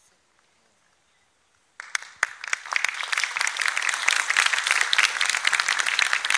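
A near-silent start, then about two seconds in an audience starts applauding: many hands clapping, quickly growing louder.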